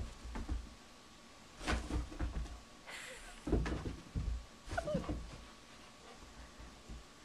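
Two dogs playing: scuffles and thumps on the carpet in three short bouts, with short dog vocal sounds and a brief rising-and-falling whine about five seconds in.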